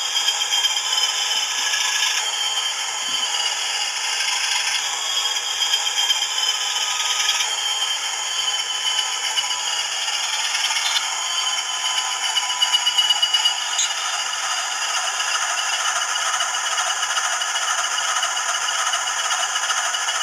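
Athearn HO-scale rotary snowplow model running on the track: its small electric motor and rubber-belt drive turning the rotor with a steady rattling whir while it is run in, along with the DCC sound decoder's engine sound from its tiny speaker.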